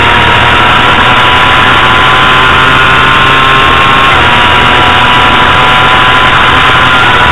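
Honda CBR250RR's 250 cc inline-four engine held at high revs under full throttle, with one upshift about four seconds in that drops the pitch. Wind rushes over the onboard microphone.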